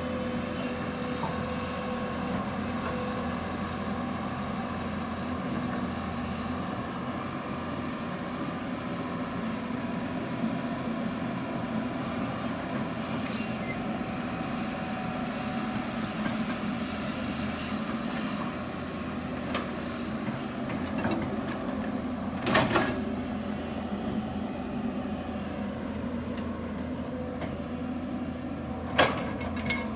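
Hydraulic excavator's diesel engine running steadily under work, with two sharp knocks, one about two thirds of the way through and one near the end.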